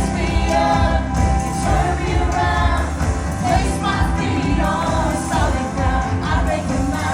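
Gospel praise music: voices singing over a band with heavy bass.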